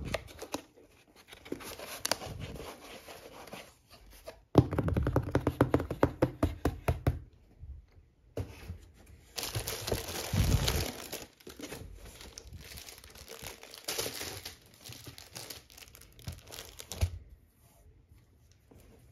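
Cardboard shipping box being torn and opened, its flaps rustling and scraping as they are folded back, in irregular bursts with a dense run of rapid tearing crackles a few seconds in and a short pause near the middle. The plastic sleeve around the book inside crinkles as it is handled.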